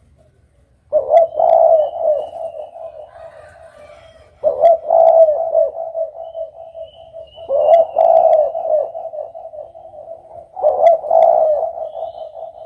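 Spotted dove (derkuku) cooing: four repeated call phrases about three seconds apart, each opening loud and trailing off. A faint high chirping runs behind.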